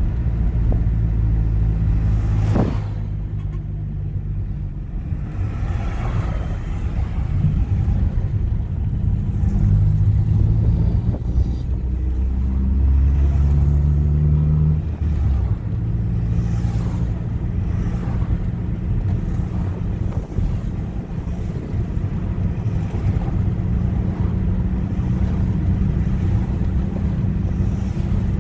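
Car engine and road noise while driving, the engine note shifting up and down in pitch several times, with wind on the microphone.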